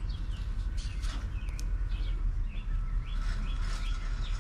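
Birds chirping in repeated short calls and quick falling notes, with a thin held whistle in the second half, over a steady low rumble.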